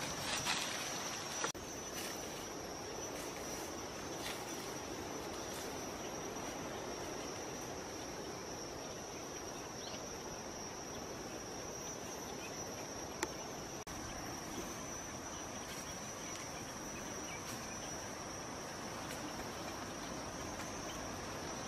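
Insects droning with one steady high-pitched tone. A few sharp snaps or crunches come in the first second or so, and one more about halfway through.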